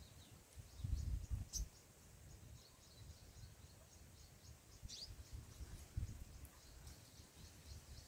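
Faint, high-pitched bird chirps repeating a few times a second, with two louder, sharper chirps about one and a half and five seconds in, over occasional low rumbles.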